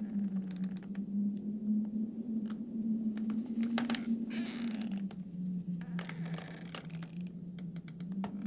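Horror sound effect of a creaking house: scattered creaks, clicks and scraping noises over a steady low hum whose pitch sags for a few seconds past the middle.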